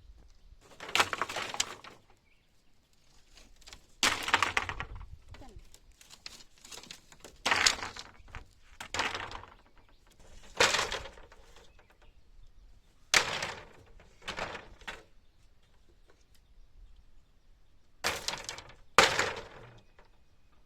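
Wood or branches cracking and breaking in about nine short, sharp bursts, irregularly spaced one to three seconds apart.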